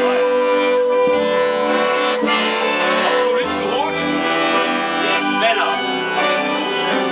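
Piano accordion playing a tune: a melody over held notes and chords, with bass notes coming in and out.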